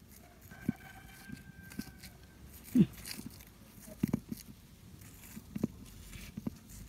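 Scattered light taps and scrapes from potting soil being poked and loosened in a terracotta pot, with one louder tap about three seconds in.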